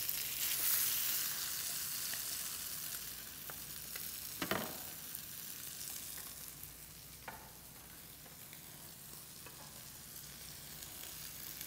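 Tilapia fillets frying in oil in a skillet: a steady sizzling hiss that slowly fades, broken by a couple of light knocks, the louder one about halfway through.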